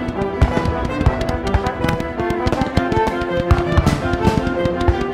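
Background music with held notes, mixed with many irregularly spaced bangs and crackles of fireworks bursting.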